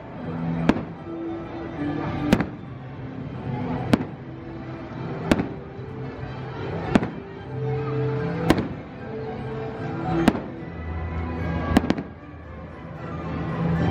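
Aerial fireworks bursting overhead, a sharp bang about every second and a half, with music playing underneath.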